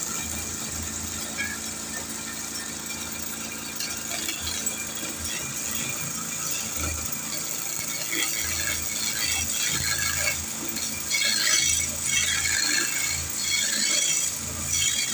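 Woodturning lathe running with a steady hum, the turning tool scraping against the spinning wood in irregular bursts from about halfway through.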